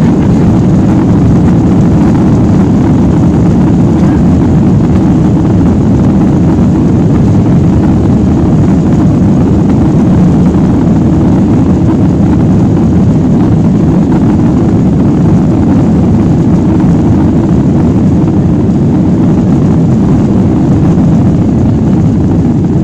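Jet airliner's engines at takeoff thrust heard from inside the passenger cabin: a loud, steady low noise through the takeoff run, liftoff and initial climb.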